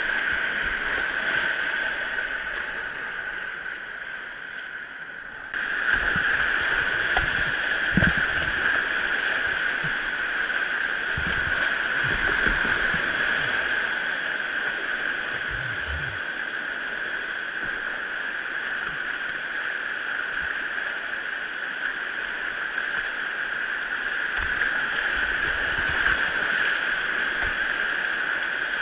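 Steady rush of water from a mountain valley stream, suddenly louder about five and a half seconds in, with a few soft low knocks from handling or footsteps.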